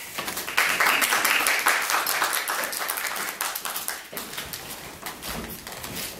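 Audience applauding. The clapping starts about half a second in, is loudest for the next few seconds and dies away after about four seconds.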